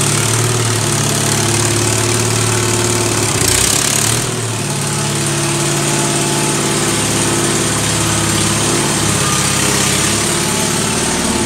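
1974 Case 646 garden tractor's engine running steadily, on its first run after years of not running and a replaced cracked oil pan. A brief hiss about three and a half seconds in, after which the engine note drops a little.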